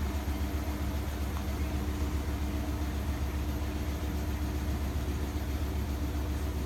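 Front-loading washing machine running through its rinse and spin cycle, the drum turning with a steady low hum from the machine.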